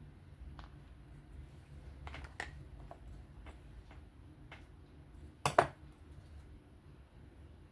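Small metal knife parts and tools being handled on a work surface: scattered light clicks and clinks, with the loudest, a quick double clack, about five and a half seconds in.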